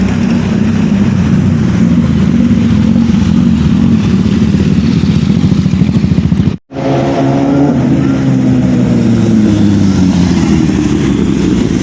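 Motorcycle engine running loud and steady. It cuts out abruptly for a split second a little past halfway, then comes back with its pitch rising and falling.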